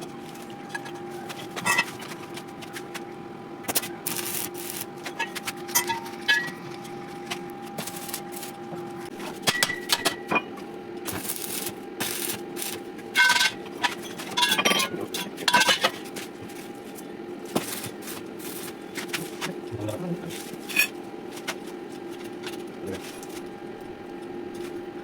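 Irregular metallic clinks and taps of steel pieces being handled, some close together in quick runs, over a steady mechanical hum.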